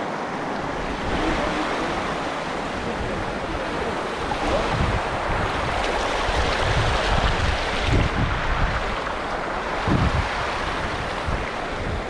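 Shallow mountain stream rushing over stones, a steady hiss of water, with wind buffeting the microphone in low rumbles from about the middle and again near the end.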